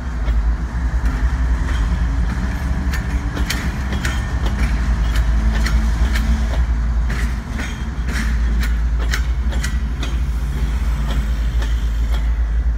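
BNSF diesel locomotives rolling past with a steady, loud low rumble, broken by scattered sharp metallic clicks and clanks from the moving train.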